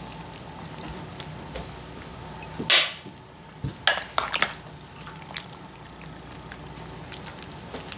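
Metal serving spoon scooping saucy tortellini out of a slow cooker's crock and into a bowl: wet scraping and light clinks of metal on ceramic, with one sharp, loud clink about three seconds in and a few more clinks just after.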